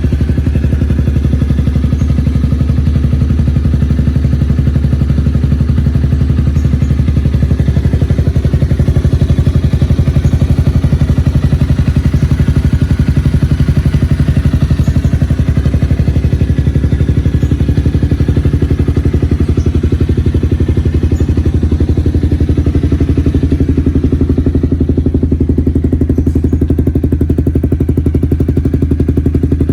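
Honda CBR250 motorcycle with an R9 aftermarket exhaust, engine idling steadily with an even exhaust beat.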